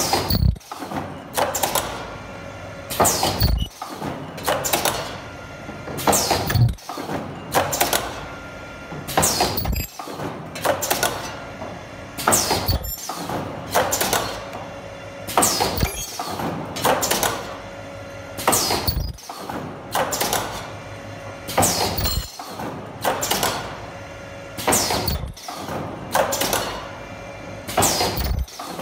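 Automatic folding face mask welding machine running on its production cycle: a sharp mechanical clack repeats about every one and a half seconds over a steady machine hum.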